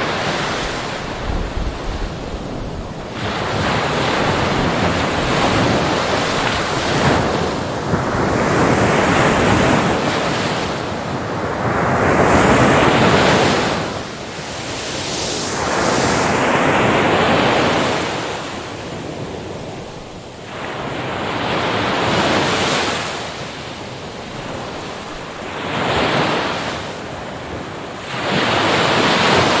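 Ocean surf breaking and washing up a beach, each wave swelling and fading over a few seconds.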